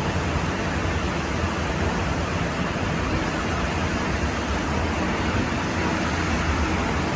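Sapporo Municipal Subway 8000-series train running on rubber tyres through a tunnel, heard from inside the car: a steady, even rumbling running noise.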